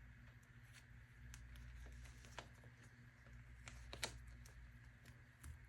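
Faint light ticks and clicks of photocards and plastic binder pocket pages being handled, the clearest about halfway through, over a steady low room hum.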